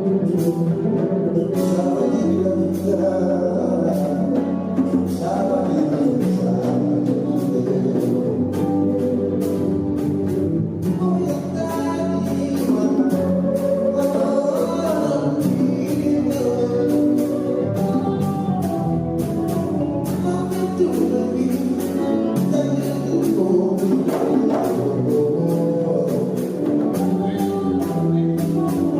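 Music: a song with singing over instruments and a steady beat.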